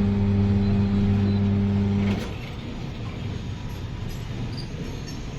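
Tyre-changing machine's electric motor running with a steady hum, then switched off about two seconds in with a click, leaving a quieter background.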